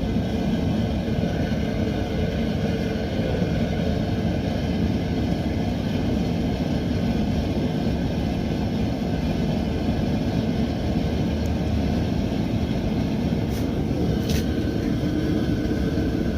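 Mr. Heater propane heater running on its high setting, a steady, noisy burner rush with a faint hum.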